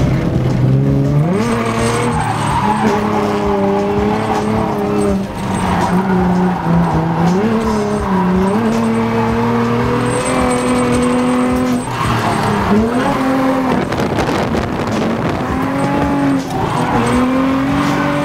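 A car engine revving hard with tyre squeal, as in drifting. The engine pitch climbs and drops repeatedly with throttle and gear changes, with sharp rises about a second in and near the end.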